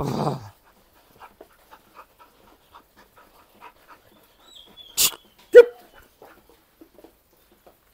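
Belgian Malinois panting quickly in short puffs while working a jute bite sleeve. About five seconds in there is a sharp smack, followed just after by one short loud cry.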